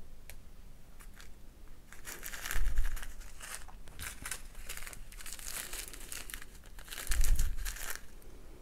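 Small plastic zip-lock bags of rhinestone drills crinkling as they are handled and swapped. There are two louder bumps, one about two and a half seconds in and another near the end.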